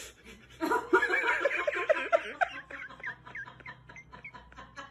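A person laughing in quick, high-pitched bursts, starting about half a second in and tapering into softer giggles over the last couple of seconds.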